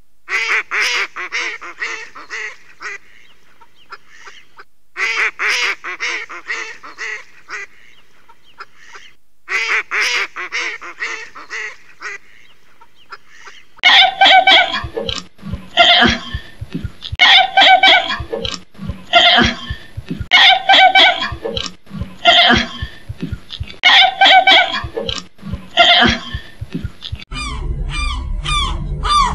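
Recorded animal cries: three bursts of rapid pulsed calls, then from about halfway a louder series of pitched calls, one every second and a half or so, changing near the end to short falling chirps.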